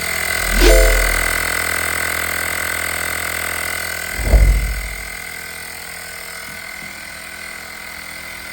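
BMW M1000R's inline-four engine idling, with two quick throttle blips, one about a second in and one about four seconds in, each a short rise and fall in revs.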